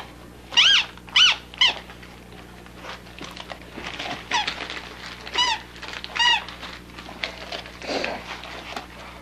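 Squeaky dog toy squeaked over and over as a dog bites on it: three quick high squeaks, then three more spaced further apart, with wrapping paper rustling between them.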